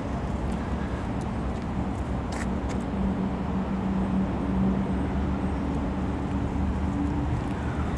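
Steady road traffic noise with the hum of a passing vehicle, loudest about four to five seconds in.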